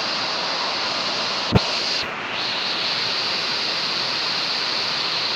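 Hair dryer blowing steadily, a rushing airflow noise, with one sharp click about a second and a half in and a brief dip in the blowing just after.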